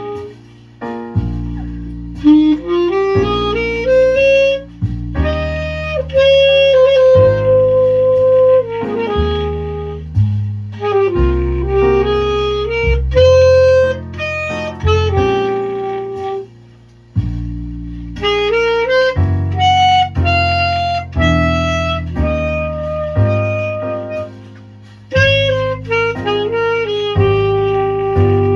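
Alto saxophone playing a jazz ballad melody in held, sliding notes, over an accompaniment of low sustained chords, with short gaps between phrases.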